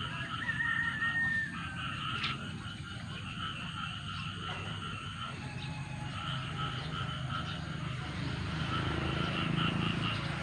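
A chorus of frogs calling steadily, with a short whistled note about half a second in and a low rumble underneath.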